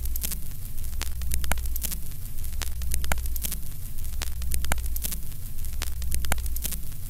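Vintage film-countdown sound effect: crackle and scattered sharp pops over a steady low hum, like worn film running through a projector.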